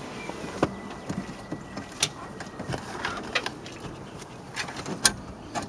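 Scattered sharp clicks and knocks of hands handling the car radio unit and its metal mounting bracket in the dash opening. The strongest knocks come about two seconds in and near the end.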